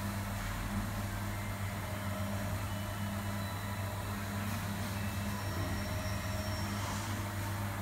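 Steady low mechanical hum of a commercial kitchen's running equipment, with a couple of faint brief clicks.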